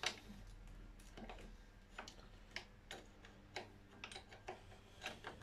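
Faint metallic clicks and taps, a sharp one at the start and then roughly two a second at uneven spacing, as hand tools and fingers work small nuts and links off the valve gear of a 5-inch gauge live steam locomotive.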